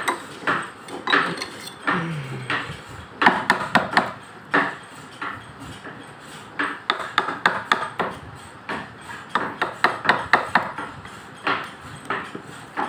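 Carver's mallet tapping a carving chisel into solid akashmoni (acacia) wood. The taps are irregular, often coming in quick runs of several a second with short pauses between.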